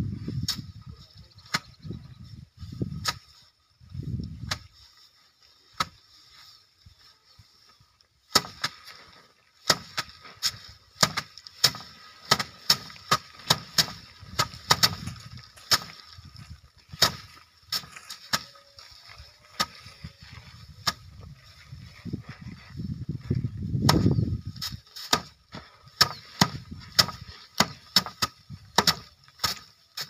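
Sheaves of rice being beaten by hand against a wooden threshing rack, several people at once. It makes an irregular run of sharp slaps and knocks, sparse at first and coming several a second from about eight seconds in.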